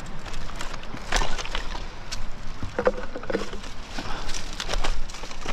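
A plastic rubbish bag rustling and crackling as it is handled, with irregular knocks and crunches of beach stones and driftwood.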